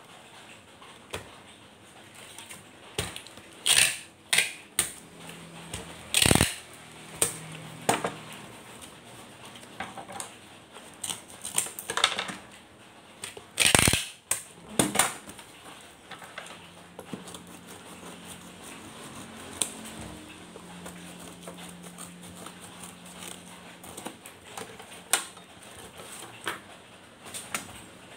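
Packing tape being pulled off a handheld tape-gun dispenser and torn off against its blade, in several loud short pulls, with the cardboard box being handled in between. The pulls bunch up in the first half and grow sparser later.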